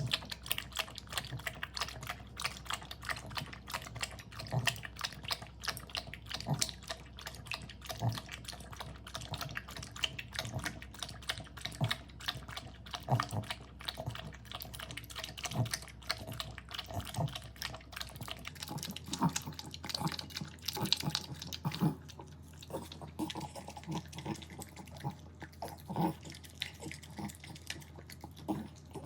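French bulldog eating: close, fast chewing and crunching with many quick clicks. About eighteen seconds in, a background hum drops away and the chewing turns to lower, heavier smacking.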